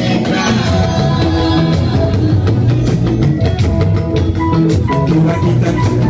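Yoruba gospel band music with drum kit and guitar playing a steady beat, in a gap between sung lines.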